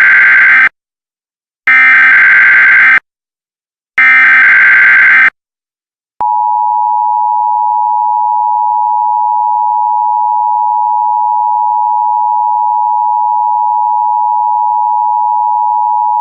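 Emergency Alert System tones: three short bursts of buzzy SAME header data, each about a second long, then the two-tone EAS attention signal (853 and 960 Hz) starting about six seconds in and holding steady.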